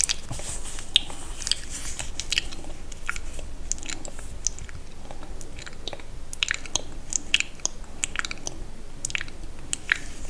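Close-miked sticky mouth sounds: irregular wet clicks and smacks of lips and tongue, a few per second.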